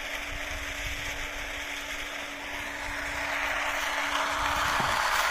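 Small electric surface pump running steadily, drawing water from a shallow Abyssinian well, with a constant hum. The running noise grows louder over the last couple of seconds.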